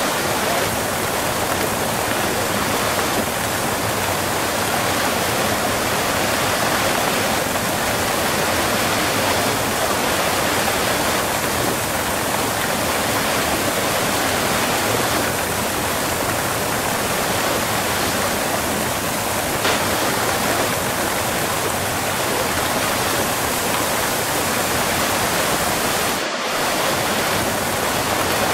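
Close-up waterfall: water pouring and splashing in a dense, steady rush, with a momentary dip a little before the end.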